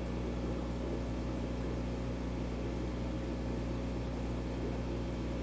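Aquarium filters and air pump running: a steady low hum under an even hiss.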